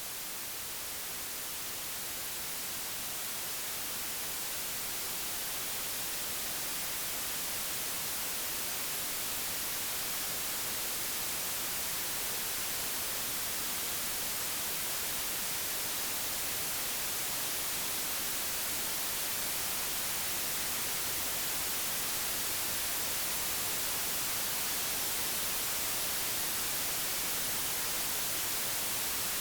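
Computer-generated white noise: a steady, even hiss with no other sound, growing slightly louder over the first several seconds and then holding level.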